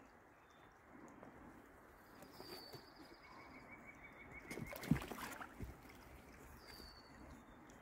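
Faint, steady rush of a flowing river with a few short, high bird calls over it. A brief rustle and knock about five seconds in is the loudest sound.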